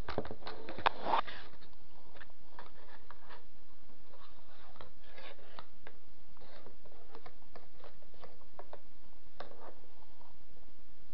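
Plastic USB keyboard being handled and turned over by hand: scattered light clicks, knocks and rubbing, with a cluster of louder clicks in the first second and a half.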